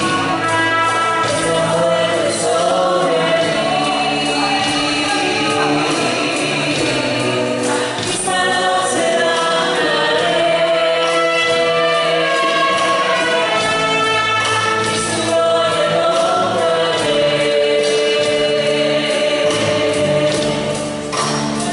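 A choir or congregation singing a Christian worship song with instrumental accompaniment and a steady beat.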